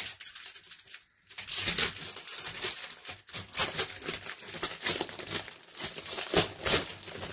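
Plastic packaging bag crinkling and rustling as hands pull it open, a dense run of crackles starting about a second and a half in.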